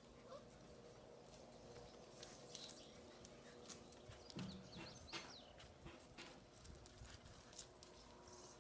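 Faint, scattered clicks and scrapes of puppies' paws scrambling over rocks and loose gravel.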